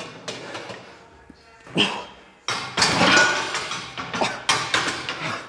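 A man breathing hard and grunting through a heavy set of front squats, with short forced exhalations and one long strained groan about halfway through, over gym music.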